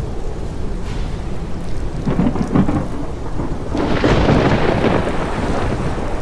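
Thunderstorm: a steady low rumble of rain and thunder, with a short thunder crack about two seconds in and a louder crackling peal of thunder about four seconds in that lasts about a second.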